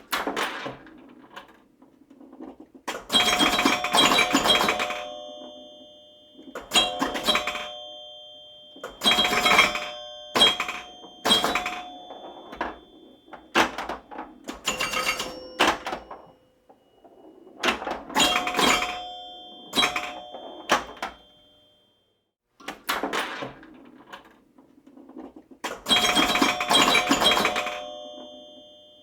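Repeated clusters of sharp strikes, each ringing on with the same bell-like tone that fades away, recurring every few seconds.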